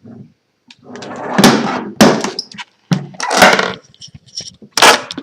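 Wooden typewriter case being handled, a string of loud knocks and thuds of wood, some of them followed by a short rattle.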